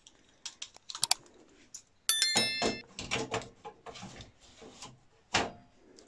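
Drive caddies sliding into a tower server's hot-swap drive bays: a series of sharp clicks and scrapes as they go in and latch, with a brief high metallic ring about two seconds in, the loudest sound.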